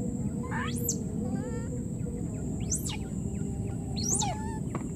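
High-pitched animal calls: three sharp, steeply rising calls and a few fainter short ones, over a steady high-pitched drone and a constant low outdoor rumble.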